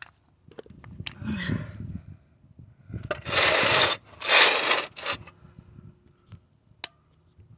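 Scraping and rustling as swamp cooler parts are handled and fitted: scattered clicks and knocks, then two loud scraping rubs, each about a second long, about three and four seconds in.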